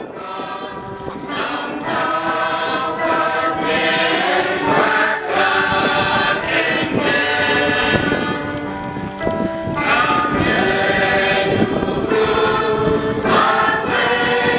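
A choir singing, swelling up from quiet to full loudness over the first two seconds.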